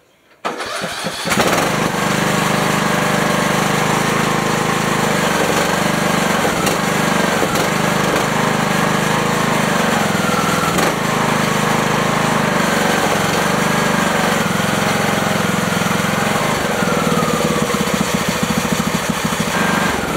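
Husqvarna riding lawn mower engine starting from cold on full choke: a brief crank about half a second in, and it catches within a second. It then runs steadily at a fast idle.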